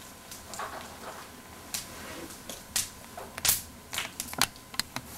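Rustling and irregular sharp clicks and creaks as a man moves about and settles into a swivel office chair. The clicks come closer together in the second half.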